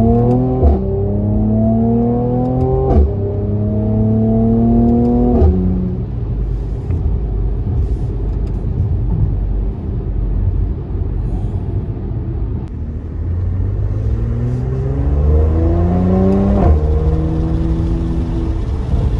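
Mercedes-AMG C43 accelerating through the gears, heard from inside the car. The engine and exhaust note climbs in pitch, then drops with a short crack at each of three quick upshifts, settles to a steady cruising drone for several seconds, and pulls up through one more gear near the end.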